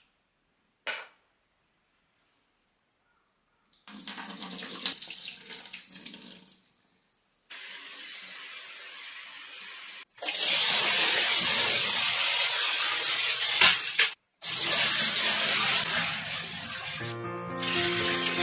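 Tap water running into a sink, in several short takes with abrupt cuts between them, loudest in the middle; a single click comes before the water, and music comes in near the end.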